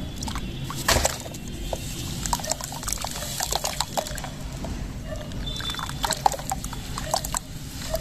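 A sand-and-cement block crumbling by hand in a basin of water: a loud splash about a second in as it is pushed under and breaks apart, then irregular splashing and sloshing as the wet chunks are squeezed and broken up.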